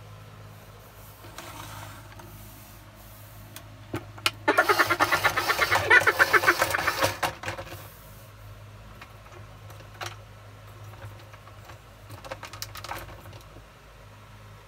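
Animated Minion toy's small electric motor and gears running as it moves, a loud rapid rattle lasting about three seconds, with a few faint clicks before and after.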